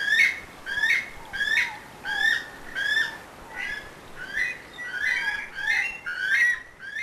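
Weka calling: a repeated shrill, rising whistle, one call about every three-quarters of a second, with the calls overlapping more thickly for a stretch near the end.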